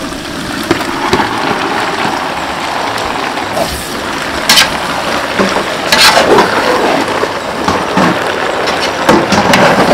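Masala sizzling steadily in a large aluminium pot as boiled baby potatoes are tipped in and stirred with a steel ladle. The ladle scrapes and clacks against the pot several times, hardest near the middle and towards the end.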